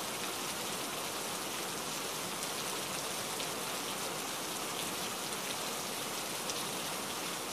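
Steady rain falling: an even hiss, with scattered sharper drop hits.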